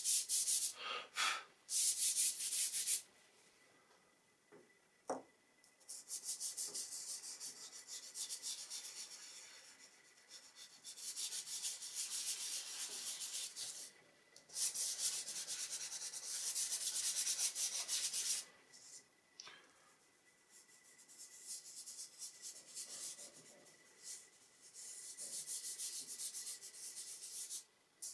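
Fingers and palms rubbing dry pastel into drawing paper to blend it: a fast, swishing back-and-forth rub in long spells, stopping twice for a few seconds.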